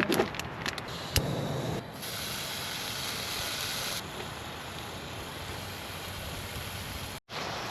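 Bacon sizzling in a frying pan: a few clicks and knocks at first, then a steady sizzling hiss, cut off briefly near the end.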